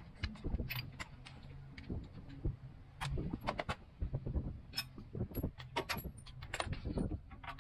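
Metal hand tools and hardware clinking and knocking in irregular clicks while a front shock absorber is being bolted in.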